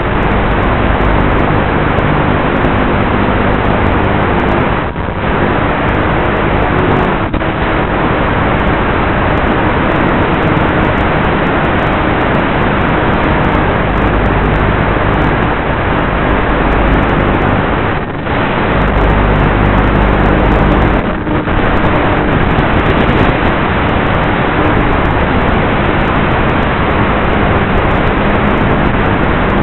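Steady rushing wind and electric motor drone picked up by the onboard microphone of an RC flying wing in flight, in strong wind, dipping briefly about four times.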